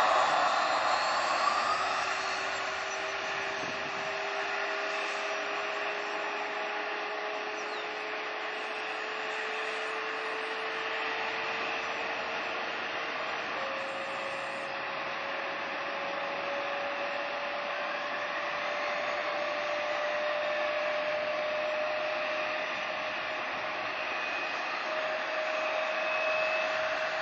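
Jet airliner engines: a steady roar with a faint whine slowly rising in pitch. The roar is loudest at the start and eases slightly within the first couple of seconds.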